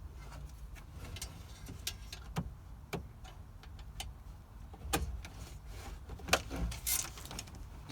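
Scattered light clicks and knocks, about a dozen spread irregularly, from hands handling the van's dashboard radio unit and its wiring, over a low steady hum.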